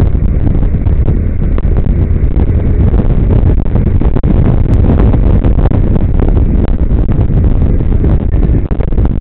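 Loud wind buffeting the microphone of a camera on a touring motorcycle at highway speed, with the bike's engine and road noise underneath as a steady rumble.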